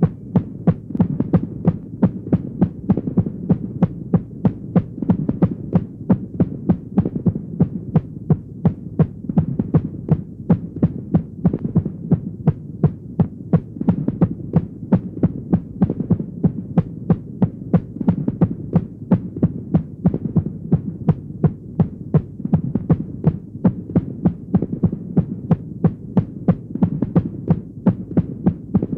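Irregular heartbeat sound effect: rapid, uneven beats over a steady low throbbing hum.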